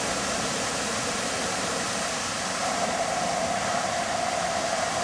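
Park fountain's many water jets splashing into the basin: a steady rush of falling water. A steady hum joins about halfway through.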